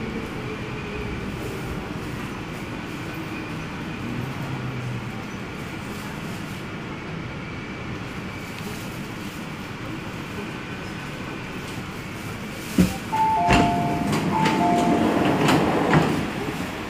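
MTR C-Train heard from inside the car, running with a steady rumble and slowing into a station. About thirteen seconds in there is a sharp click, then a two-note door chime, high then low, sounds twice as the train doors and platform screen doors slide open with clunking.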